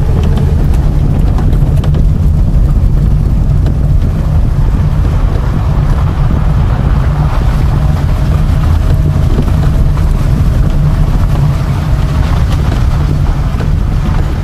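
Steady, loud low rumble of a small car driving down a gravel dirt road, heard from inside the car: tyre and road noise with wind on the microphone and scattered light clicks.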